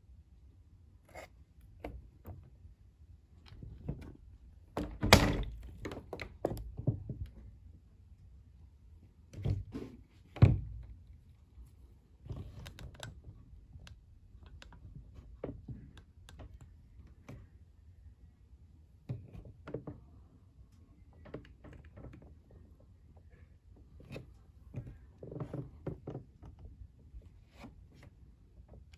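Handling noise from fitting a plastic body post to an RC buggy's shock tower: scattered small clicks and knocks of parts and tools, with two louder thunks about five and ten seconds in.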